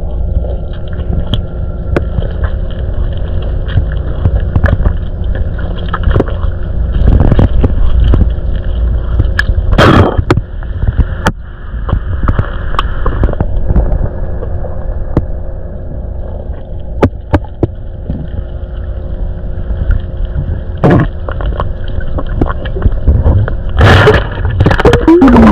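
Muffled underwater sound: a heavy low rumble with gurgling bubbles and scattered sharp knocks, with bigger bursts of bubbling about ten seconds in and near the end.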